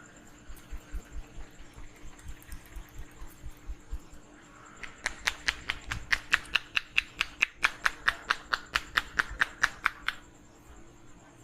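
Hand percussion of an Indian head massage: soft, dull thumps about three a second, then from about five seconds in, sharp popping slaps of hands striking the head, about four or five a second. The slaps stop about a second before the end.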